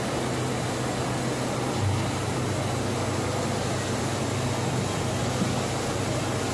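Steady low hum of a running Borche BU 700 two-platen plastic injection moulding machine, under the constant background noise of a busy exhibition hall.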